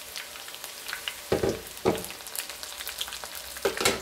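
Battered dandelion flowers deep-frying in oil, sizzling with many sharp little pops and spits: air trapped in the hollow dandelion stems bursts as it heats. A few louder knocks come about a second and a half in, near two seconds, and near the end.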